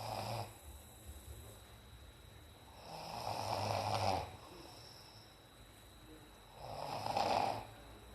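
A man snoring in his sleep: the tail end of one snore at the start, then two full snores, each lasting about a second and recurring about every four seconds, with quiet breathing in between.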